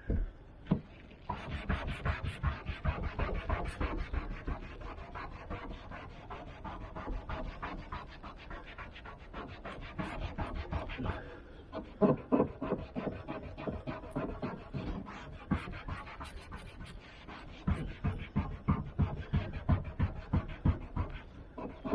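A damp cloth scrubbing a van roof back and forth in rapid strokes, cleaning a patch so Sikaflex adhesive will bond. It pauses briefly about eleven seconds in.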